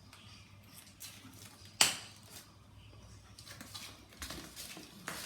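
Handling of a new laptop and its packaging: soft rustles and small taps, with one sharp click a little under two seconds in.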